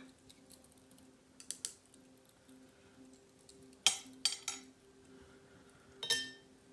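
Something loose rattling in short, sharp clinks: a small pair about one and a half seconds in, a louder cluster of three around four seconds, and another around six seconds. A faint steady hum runs underneath.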